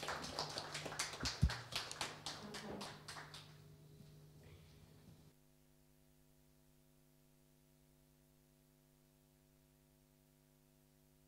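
Small audience applauding, dying away and cut off about five seconds in, followed by a steady low electrical hum.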